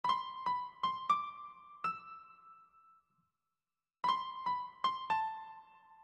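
Background music: a short, high melody of struck keyboard notes, about five notes that ring and fade. After a pause of about a second, the phrase is played again.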